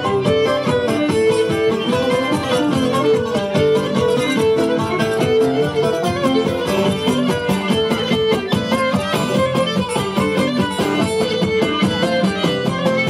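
Cretan traditional dance music: a bowed string melody over plucked strings strummed in a steady, quick beat.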